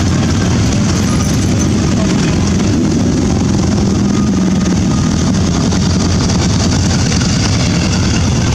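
Motorcycle engines, a mix of sport bikes and cruisers, running steadily as a procession of bikes rides past one after another.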